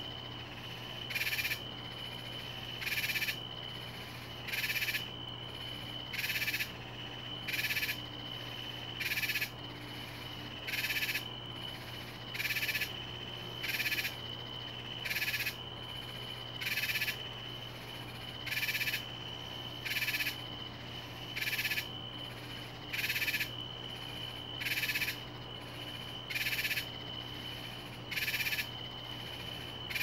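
Night animal chorus: a raspy call about half a second long repeats evenly, about every one and a half seconds, over a continuous high-pitched steady trill and a low hum.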